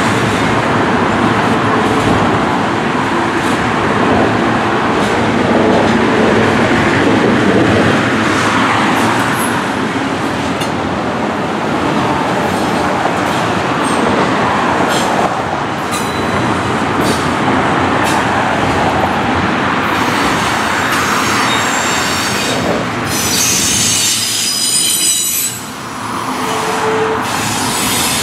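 Double-stack intermodal freight train rolling past, its steel wheels rumbling and clicking over the rails. From about twenty seconds in, a high wheel squeal rings over the rumble.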